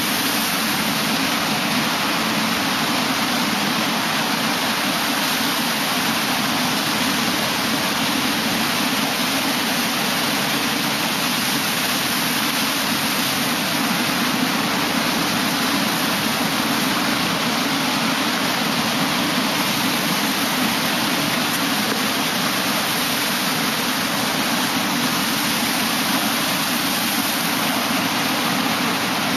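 Ocean surf breaking and washing in over the shallows: a steady, even rush of water with no single breaker standing out.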